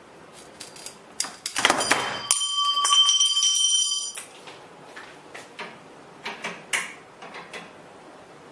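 A handheld tube cutter rasping as it turns around a metal tube, then the tube ringing with several clear tones for about two seconds, followed by scattered light clicks and knocks.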